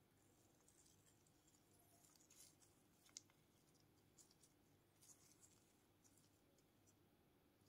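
Near silence with faint handling sounds of gloved hands on a smartphone: soft rustles and light taps, with one sharper click about three seconds in.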